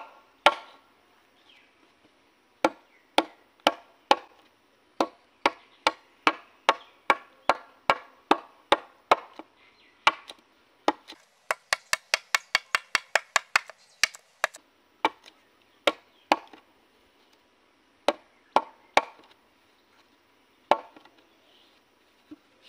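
Machete blade chopping into a wooden beam: sharp single strikes at an irregular pace of one or two a second, with a faster run of light quick strikes about halfway through.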